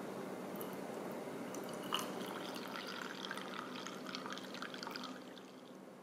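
Coffee poured from a glass server into a stainless steel mug, with splashing and bubbling. It starts with a sharp clink about two seconds in and stops about five seconds in.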